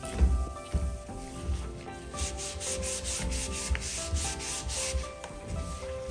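Cloth wiping back and forth over a shower tray in quick strokes, about four a second, over background music with a low beat.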